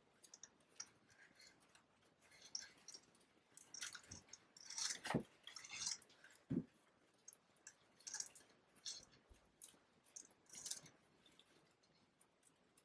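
Faint, scattered rustling and a few soft taps of hands wrapping ribbon around the taped stems of a paper-flower bouquet.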